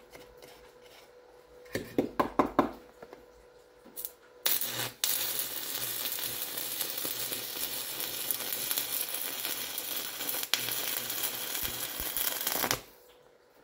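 Stick (arc) welder with the electrode on steel: a few short clicks as the arc is struck, then about 4.5 s in the arc catches and crackles steadily for about eight seconds before cutting off suddenly.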